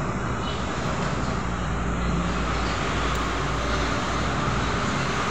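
Steady road-traffic noise with a low rumble.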